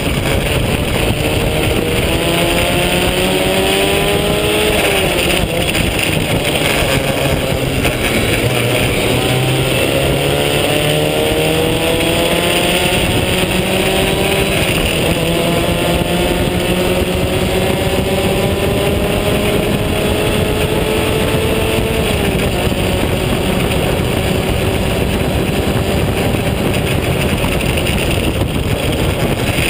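Onboard sound of a vintage open-wheel race car's engine under power, its pitch climbing through the revs, dropping sharply about five seconds in at a gear change, climbing again and falling once more near the end, with steady wind noise on the microphone.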